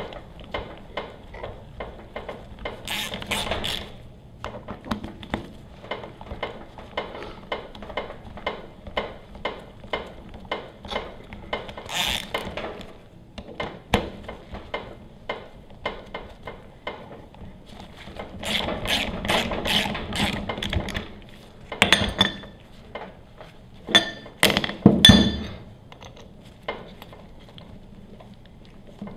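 Socket ratchet clicking steadily, about three clicks a second, as the bolts on a pressure washer pump are run down. A few louder metal clanks and clinks come in the last third.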